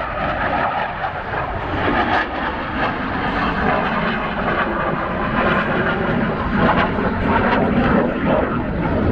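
Saab J35 Draken jet fighter in flight, its single turbojet engine making loud, steady jet noise that grows deeper in the second half.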